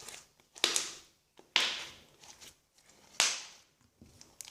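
Glue slime being pressed and stretched by hand, making three sharp, squishy pops a second or more apart.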